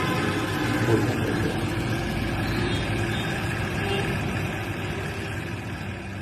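A steady mechanical drone with a low rumble and several held tones, like a large vehicle engine running.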